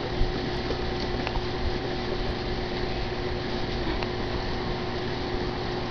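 A steady background hum with a constant tone over an even hiss and low rumble, like a fan or air-conditioning unit running. There is a single light knock about a quarter second in.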